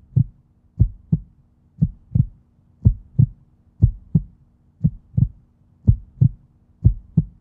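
Heartbeat sound effect: a low double thump, lub-dub, repeating about once a second, over a faint steady low hum.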